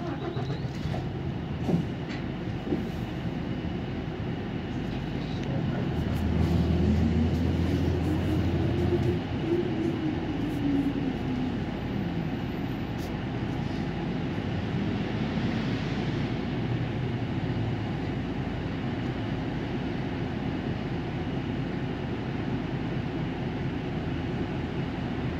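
A Nagoya city bus running, heard from inside the cabin: a steady drone of engine and road noise with a few sharp knocks at the start. About a quarter of the way in, the engine note rises and then falls away again.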